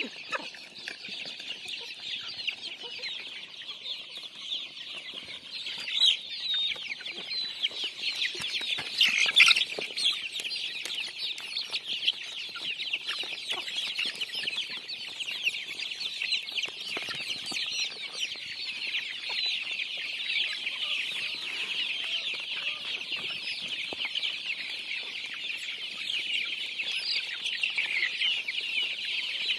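A big flock of young desi chickens and chicks calling all at once, a dense high-pitched chorus of overlapping peeps and clucks that grows a little louder about six seconds in.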